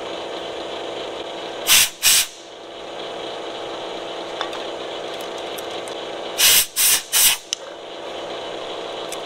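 Vertical milling machine running steadily as a carbide end mill cuts a keyway along a stainless steel pump shaft under power feed. Cutting oil is sprayed onto the cut in short loud hissing bursts, two about two seconds in and three more near seven seconds.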